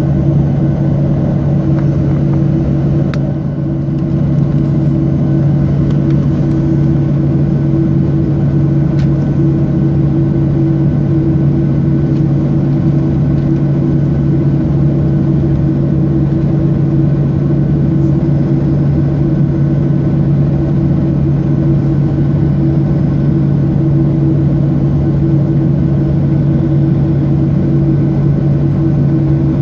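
Boeing 737-600 cabin noise on the ground: its CFM56-7B jet engines at idle and the air-conditioning make a steady, loud hum with two low droning tones, unchanging throughout, as heard inside the cabin.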